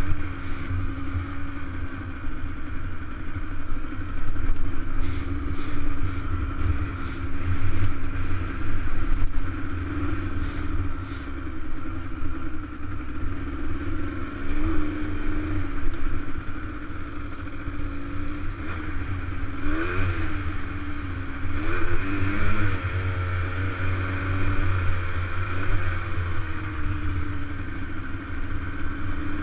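Dirt bike engine running at a steady riding speed, with the pitch rising and falling a few times past the halfway point as the throttle is opened and eased off. Wind rumbles on the helmet-mounted microphone underneath.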